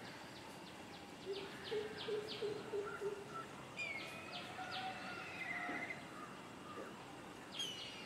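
Wild birds calling over a steady outdoor background. About a second in comes a short run of low hooting notes, mixed with quick high chirps. Twice, about four seconds in and again near the end, a whistled phrase sweeps down and then wavers into a trill.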